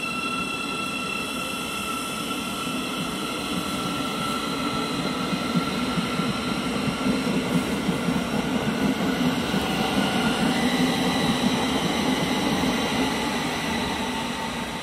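Thameslink electric multiple unit running past: a continuous rumble of wheels on rail, with a steady high electric whine that fades away about two-thirds of the way through.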